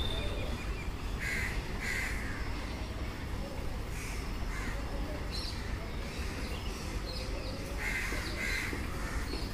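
A bird calling with harsh, caw-like calls: two in quick succession about a second in, fainter ones midway, and two more near the end, over a steady low rumble.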